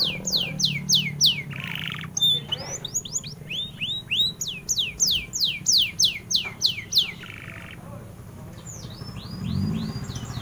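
Domestic canary singing: a fast run of sharply falling whistled notes, about five a second, broken by short buzzy trills about two and seven seconds in, the song fading near the end. A low engine sound rises near the end.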